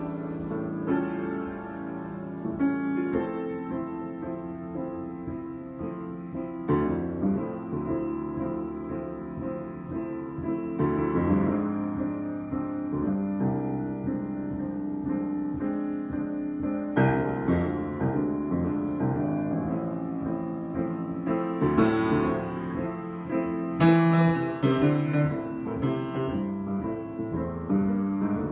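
Solo piano improvisation: slow, sustained chords, a new chord struck every few seconds and left to ring.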